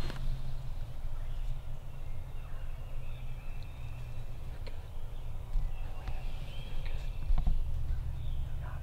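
Wild turkey gobbling over a steady low rumble.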